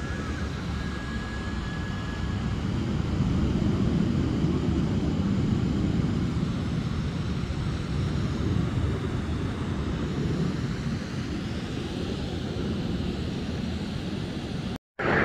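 Aerobatic display aircraft flying overhead: a steady, deep engine rumble that grows louder about three seconds in.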